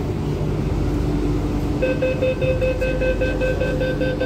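Door-closing warning on a Hong Kong MTR train: a rapid run of high electronic beeps, about five a second, starting about two seconds in. Underneath is the steady hum of the stopped train.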